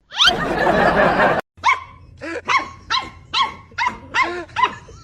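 A loud, rushing noise lasting about a second and a half that cuts off sharply, then a dog barking in quick, repeated short barks, about three a second.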